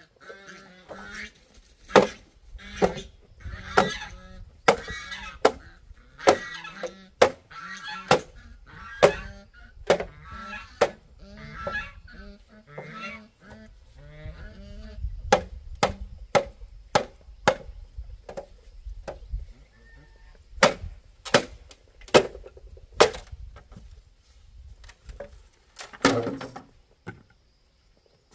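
Repeated sharp blows of a tool on wood, about one to two a second, with honking calls of farm fowl through the first half and a louder call near the end.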